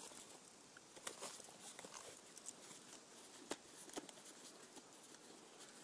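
Faint scattered clicks and rubbing of a mountain bike tire being worked by hand as its bead is pressed back onto the rim, the sharpest click about three and a half seconds in; otherwise near silence.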